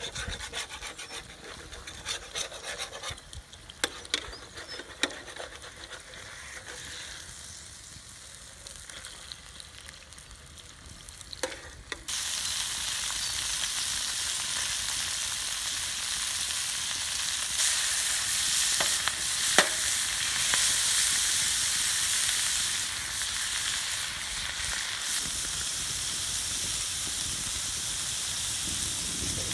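Food frying in a steel pan over an open wood fire: light crackling and spitting at first, then about twelve seconds in the sizzle jumps suddenly to a loud, steady hiss as pak choi and mushrooms fry with steam rising, with a few sharp clicks as the pan is stirred.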